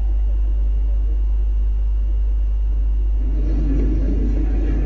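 Steady low rumble of a convoy of military jeeps driving past. A little past three seconds in, a rougher, busier layer of noise joins the rumble.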